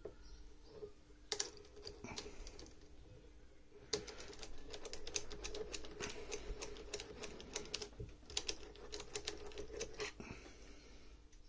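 Quick, irregular metal-on-metal clicking as a small tool holder is handled and screwed into the tailstock of a mini cast bead lathe: a few separate clicks at first, then a dense run of clicks lasting about six seconds from around four seconds in. A faint steady hum sits underneath.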